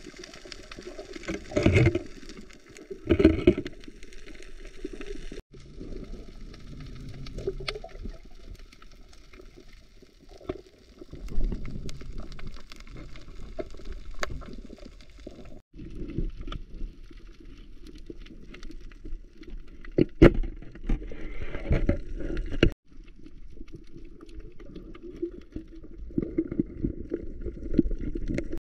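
Muffled underwater sound picked up by a camera during a dive: low, steady water noise with scattered sharp clicks, and a few louder surges, two in the first few seconds and more later on.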